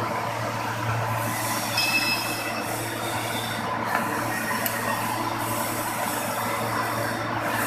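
Steady workshop machinery noise with a low hum, and a short high-pitched metallic squeal about two seconds in.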